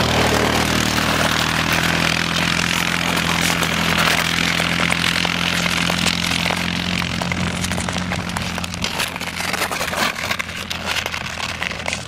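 Quad bike engine running at a steady idle, fading in the last couple of seconds, over a hiss. Short scraping ticks, skate blades on the ice, come more often in the second half.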